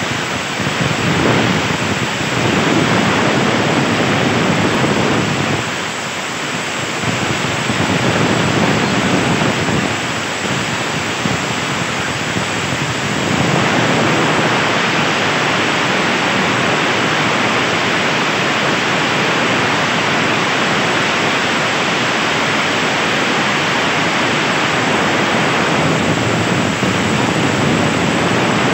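Compressed air hissing from an air hose blown over a car engine to clear off dust. A loud, steady hiss that dips a few times in the first half and holds even from about halfway on.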